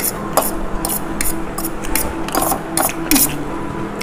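Noisy eating of chow mein: irregular sharp clicks and scrapes, about two a second, the loudest about three seconds in.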